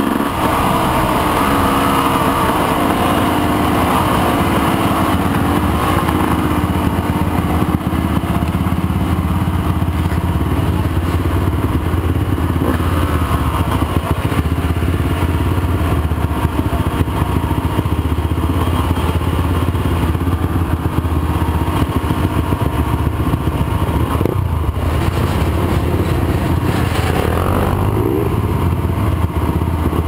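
Motorcycle engine running steadily, its pitch and level barely changing.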